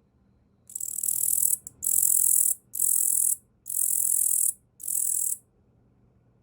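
Male Tettigonia orientalis katydid stridulating: five very high-pitched, buzzing song phrases, each under a second long, separated by short pauses, starting about a second in.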